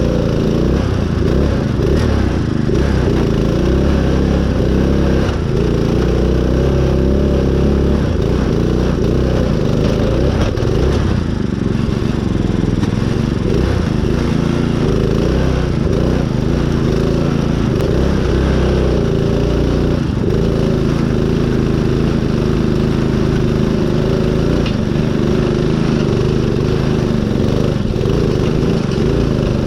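Small engine of a custom mud-running riding mower, running steadily at a fairly even speed.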